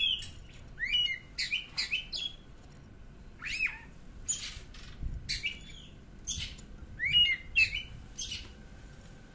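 Oriental magpie-robin singing: short phrases of sharp whistled notes and quick up-and-down sweeps, with brief pauses between phrases.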